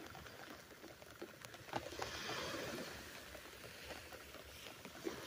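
Rain pattering on the fabric of a beach umbrella overhead: scattered drops ticking over a steady hiss that swells briefly about two seconds in.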